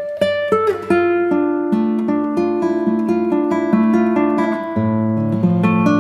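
Background music: an acoustic guitar playing picked and strummed notes in a quick, steady rhythm.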